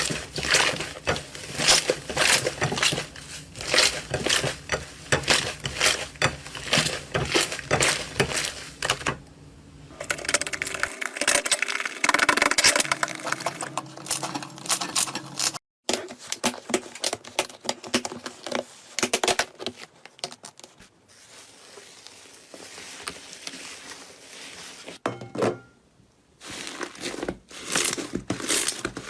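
Slime being squeezed, poked and stretched by hand, giving quick runs of sticky clicks, pops and crackles. The sound breaks off briefly about halfway through and comes back quieter for a while.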